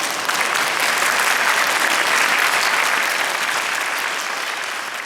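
Audience applauding at the end of a brass band performance, swelling in the first couple of seconds and then slowly dying away.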